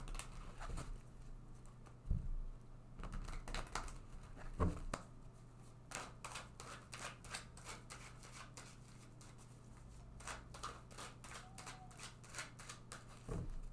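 Tarot cards being shuffled and handled: runs of quick, light card clicks and flicks, over a faint steady hum.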